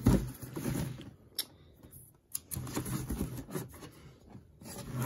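Hands handling and turning a large cardboard box: a low thump at the start, then a few sharp taps and irregular rubbing and scraping of skin on cardboard.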